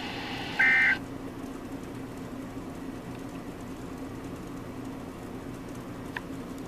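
A single brief burst of NOAA Weather Radio SAME digital data tones, a harsh two-tone screech about half a second long: the end-of-message code closing a severe thunderstorm warning. Right after it the broadcast audio cuts out, leaving a steady low hum and faint hiss.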